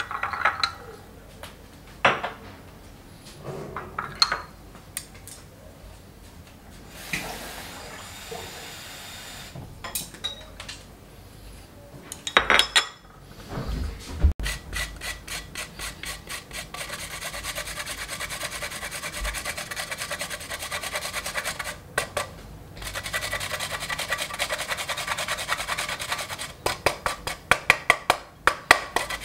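Chopsticks click against a ceramic bowl while stirring dipping sauce. About halfway through, fresh ginger is rasped on a handheld metal grater in quick, even strokes, with one short pause.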